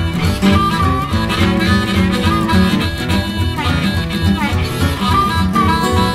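Electric blues recording: a harmonica plays a lead line with bent, sliding notes over guitar and a steady bass-and-drum beat.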